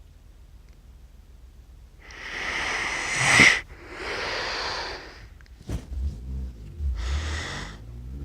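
A sleeping person snoring in loud, hissing breaths. One breath swells to a sharp snort about three seconds in, followed by a long breath out, a brief click, and another hissing breath near the end.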